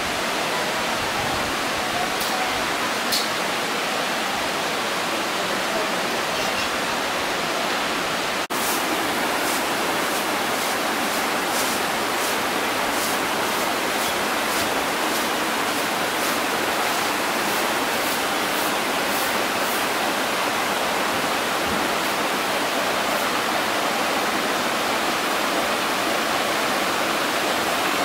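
Waterfall: steady rushing of falling water.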